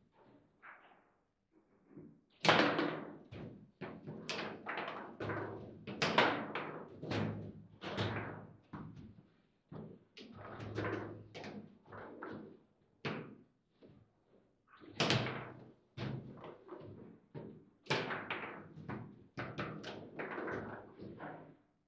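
Table football in play: rapid, irregular hard knocks and clacks as the ball is struck by the plastic figures and rods are slammed. A few shots stand out much louder than the rest, with short ringing after each.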